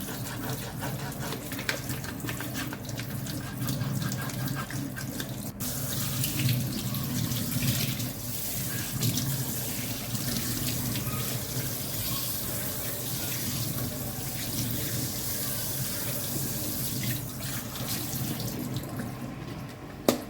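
Tap water running into a sink while a washing machine's lint filter is scrubbed under the stream with a brush; the water stops near the end.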